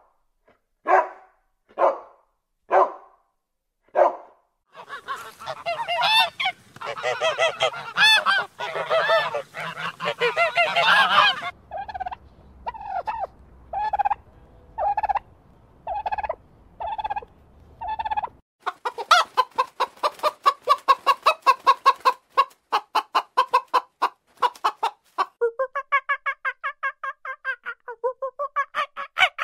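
A dog barks five times, about a second apart, at the start. Then comes a long run of poultry calls: a dense, overlapping flurry, then a domestic turkey calling in a slow, even series of single calls, then faster repeated calls.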